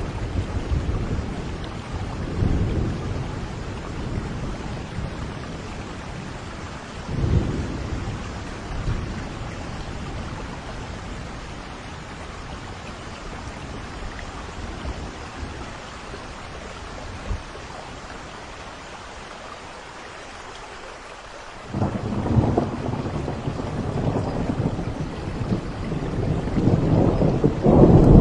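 Steady rain with thunder rolling: low rumbles near the start and again about a quarter of the way in, then a quieter spell of rain alone. About two-thirds of the way through a loud thunder rumble breaks in suddenly and keeps building to the end.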